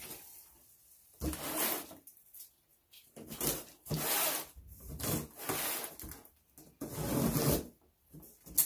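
Cardboard box being cut open with scissors: several scraping, rubbing strokes as the blade slits the packing tape and the flaps are worked open, with a short sharp tap near the end.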